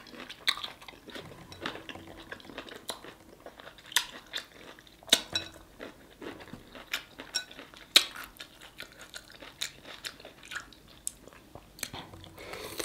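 Close-up eating sounds of a person crunching and chewing a sauce-dipped cucumber spear. Wet mouth smacks and sharp clicks are scattered throughout, the sharpest about four, five and eight seconds in.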